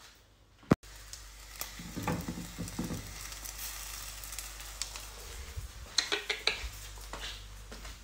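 Food sizzling as it fries in a non-stick frying pan on a gas hob. A sharp click comes just under a second in, and a few light knocks of the pan and food being handled come during the frying.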